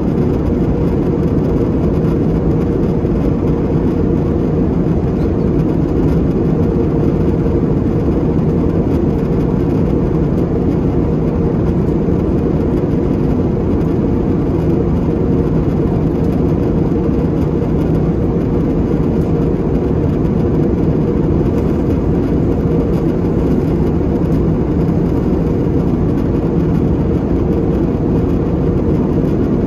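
Steady cabin drone of an Airbus A320-family jet airliner in flight: engine and airflow noise heard inside the passenger cabin, a low rushing noise with a steady hum in it.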